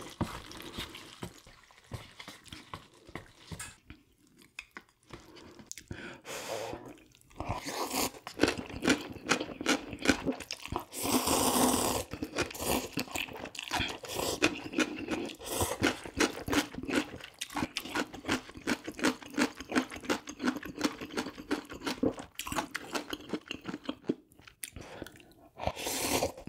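A person chewing and crunching food close to the microphone while eating spicy instant noodles with kimbap and kimchi. The chewing is sparse at first and turns into a rapid run of wet crunches and smacks from about eight seconds in.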